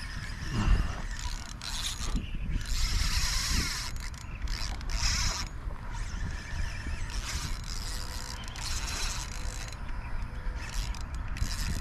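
Spinning reel whirring and clicking in repeated spells while a hooked fish pulls against a hard-bent rod and tight line.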